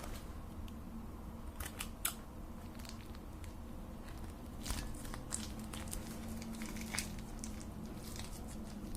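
Irregular sharp clicks and crunches over a low steady hum, the loudest about two seconds in and again near five and seven seconds.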